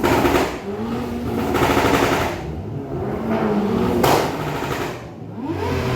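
Car engine revved in repeated blips, with rapid exhaust pops and crackles in bursts as the revs fall, the last a single sharp bang about four seconds in.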